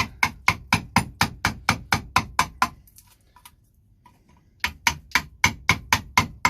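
A chisel struck in quick, even blows, about four a second, chopping waste out of a recess in a block of wood. The blows stop for about two seconds near the middle, then start again.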